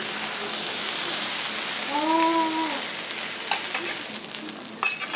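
Okonomiyaki and noodles sizzling steadily on a teppan iron griddle, with a short rising-and-falling tone about two seconds in. A few light clicks and knocks of utensils follow near the end.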